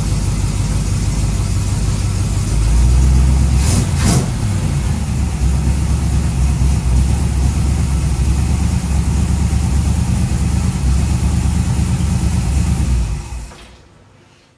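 Small-block Chevy 350 V8 running in a hot rod coupe, louder for a moment about three seconds in, with two sharp cracks about four seconds in. It is then switched off near the end and dies away quickly.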